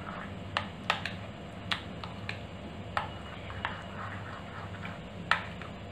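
A steel spoon stirring thick green chutney and curd in a bowl, clinking sharply against the bowl's side at irregular moments, about seven times, over a faint steady low hum.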